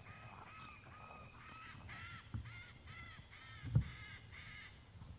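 A bird calling in a fast series of short, honking notes, about three a second, getting louder partway through, with two dull thumps, the second the loudest sound.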